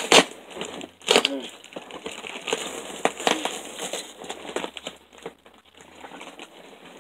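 Packing material crinkling and rustling in an opened cardboard shipping box as hands dig through it. There are sharper, louder crackles near the start, about a second in and a little after three seconds.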